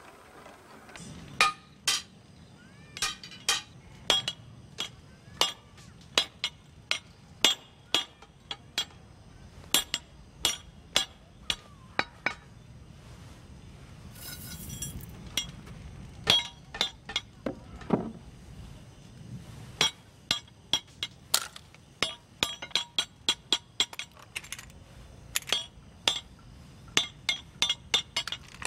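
Blacksmith's hammer striking a hot steel blade on an anvil: sharp ringing clinks, about one a second at first, pausing briefly around the middle, then quickening to two or three a second near the end.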